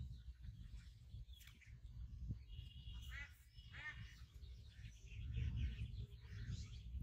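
Two short bird calls about three seconds in, with a thin high note alongside them, over a low, uneven rumble like wind on the microphone.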